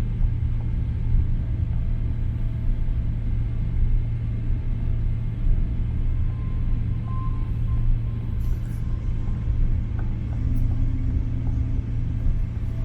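Steady low rumble inside the passenger cabin of a Boeing 777-300ER taxiing after landing, its engines running at idle.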